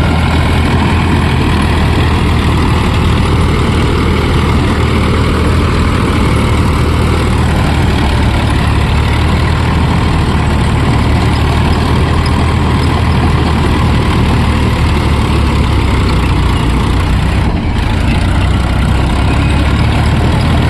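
Tractor engine running steadily: a loud, even, low drone with a momentary break near the end.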